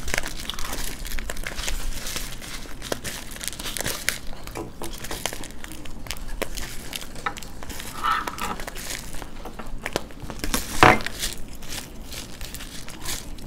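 Crinkling and crackling of foil-lined paper chaat bowls being handled and squeezed, in many small crackles, with one louder crackle near the end.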